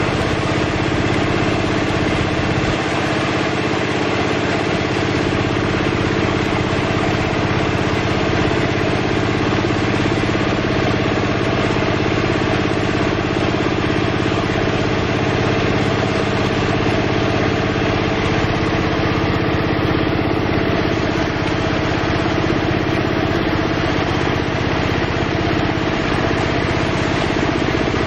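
An engine running steadily at an even speed, over continuous splashing and churning water from pangasius catfish thrashing at the surface to take feed.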